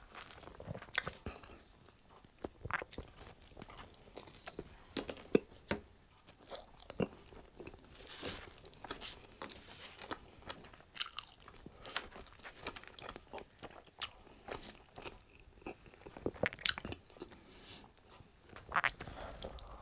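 A person chewing and biting pizza close to a clip-on microphone: irregular crunchy bites of crust and chewing, with a few louder crunches.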